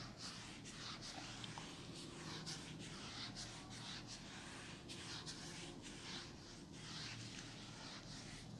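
Whiteboard being wiped clean: faint, repeated rubbing strokes, about two a second.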